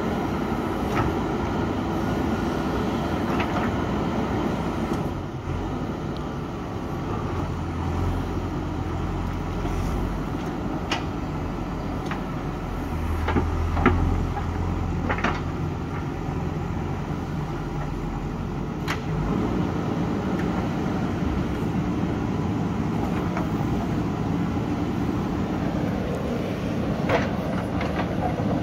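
JCB 3DX backhoe loader's diesel engine running under working load, swelling deeper twice. Scattered sharp knocks of the steel bucket striking rock come through it.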